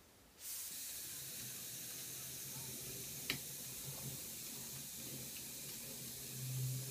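Steady hiss of compressed air from the slider prop's pneumatic cylinder as it pushes the metal frame out along its drawer slides, starting suddenly half a second in. A single sharp click about three seconds in.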